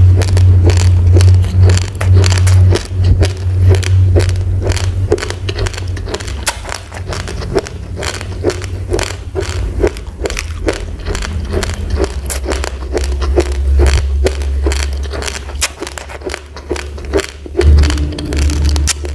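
Raw rice grains being chewed, a dense run of sharp, irregular crunching clicks several times a second, over a steady low hum.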